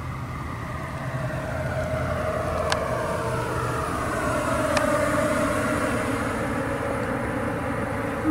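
Tesla Model 3 pedestrian warning system sound as the car creeps forward: a synthetic hum with a slowly falling whine over a low thrum likened to a helicopter. Two faint clicks in the middle.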